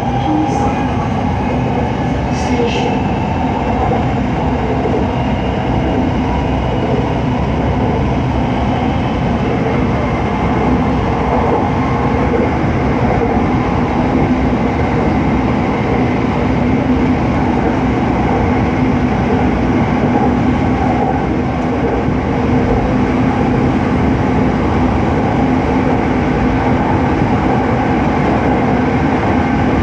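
Passenger train running at steady speed, heard from inside the carriage: a continuous rumble of wheels on rail with a low steady hum.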